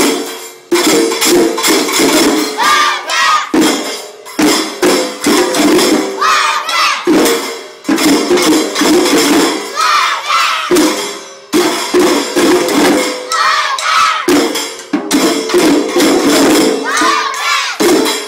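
Group of young children striking small hand cymbals with drumsticks in repeated rhythmic phrases of about three seconds. Each phrase ends in a shout of "Wildcats!", about every three and a half seconds.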